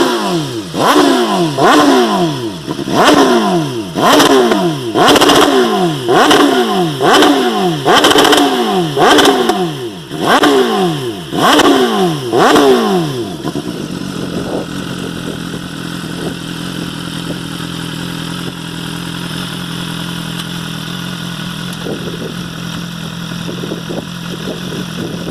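BMW S1000RR inline-four sport bike through an aftermarket carbon-fibre exhaust tip, blipped loud about once a second, each rev rising and falling away, a dozen or so times; about halfway in it settles to a steady idle.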